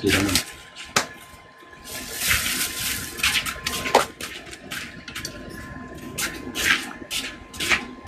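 Liquid in a wok hissing and bubbling on a small outdoor stove, coming in uneven bursts, the longest about two seconds in.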